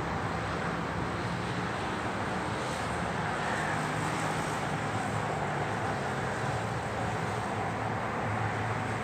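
Steady city traffic noise: a continuous wash of passing cars with a low engine hum underneath.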